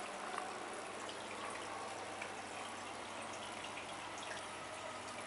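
Water circulating in a reef aquarium: a steady trickling and splashing with small scattered drips, over a low steady hum.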